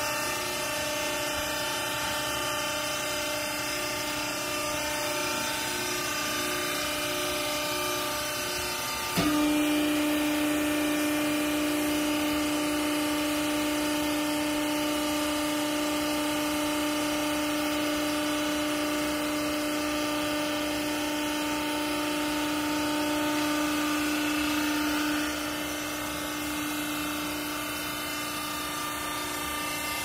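Vertical hydraulic textile baler's electric motor and hydraulic pump running with a steady tone. About nine seconds in, the sound suddenly steps up to a louder, stronger steady tone as the pump comes under load with the ram pressing the clothes, then eases back down near the end.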